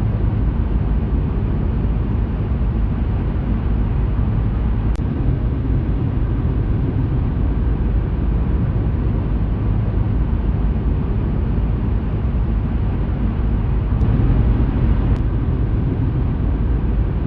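Steady vehicle rumble with road noise, heavy in the low end and even in level throughout.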